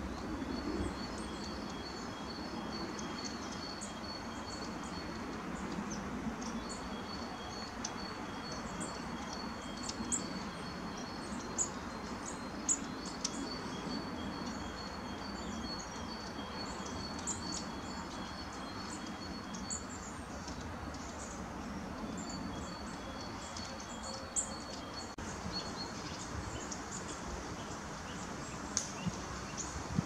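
Outdoor woodland ambience: small birds giving scattered short chirps and calls over a steady background hiss, with a faint steady high-pitched whine that drops out a few times.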